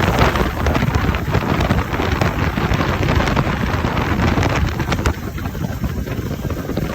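Emergency safety shower discharging water at about 100 litres a minute, a steady hiss and splash of spray, under heavy wind buffeting on the microphone from strong gusts. It eases a little about five seconds in.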